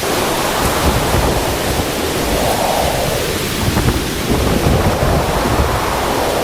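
Typhoon wind blowing hard across the microphone: a loud rushing noise with low buffeting rumbles that swell and ease in gusts.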